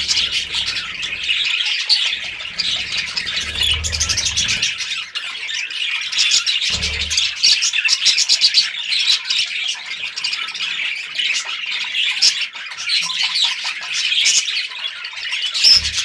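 Budgerigars chattering: a dense, continuous mix of chirps, warbles and squawks, with a low rumble under the first few seconds.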